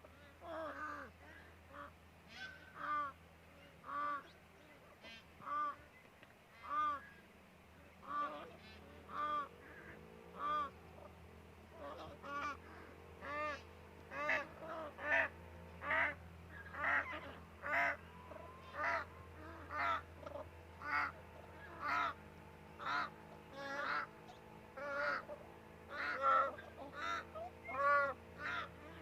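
A flock of Indian peafowl giving short, honking cough calls over and over, several birds overlapping. The calls come about once a second, then grow denser and louder after about twelve seconds.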